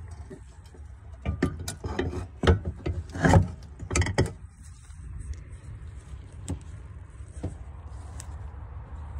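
Clicks and knocks of the metal hatch latch assembly being handled and fitted back into place, several close together in the first half, then a few single clicks, over a steady low hum.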